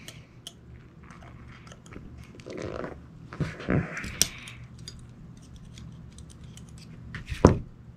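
Small metal clicks and ticks of revolver parts and a hand tool being worked around the trigger of a Ruger New Vaquero as its trigger spring is refitted. There are a few louder handling noises in the middle and a single louder knock near the end.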